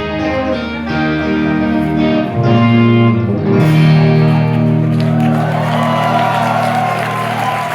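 Live rock band with guitars ending a song: a few chords struck in turn, then a final chord held and left ringing from about three and a half seconds in. The crowd begins cheering and whooping over the ringing chord about five seconds in.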